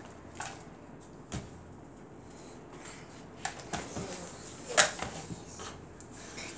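Small plastic Play-Doh tubs and craft items handled and set down on a tabletop: a few scattered knocks and taps, the loudest nearly five seconds in.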